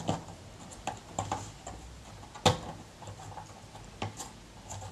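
Scattered small clicks and taps from fingers handling the wiring connectors and circuit boards inside an opened Tascam mixing console, the sharpest click about halfway through.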